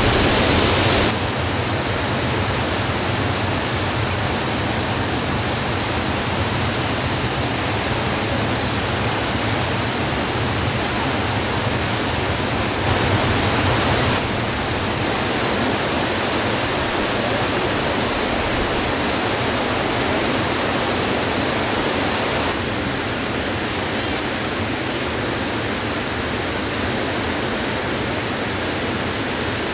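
Steady rushing of a large waterfall in full flow, swollen by rain. Its tone shifts slightly a few times, with a brief louder stretch around the middle and a duller sound from about two-thirds of the way through.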